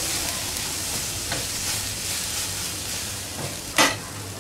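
Onion and spice masala frying in oil in a kadhai, sizzling steadily as a spatula stirs it. A sharp knock of the spatula against the pan near the end is the loudest moment.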